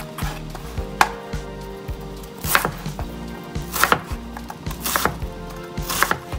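Chef's knife dicing an onion on a wooden cutting board: sharp knocks of the blade striking the board, irregular and roughly one a second, with fainter cuts in between.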